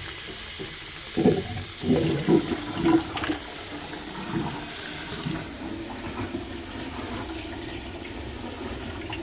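A full kitchen sink draining through a newly repaired drain line, with water rushing down the drain and loud gurgling glugs in the first few seconds as the plug is pulled, and the tap still running into the basin. The rushing eases a little past halfway.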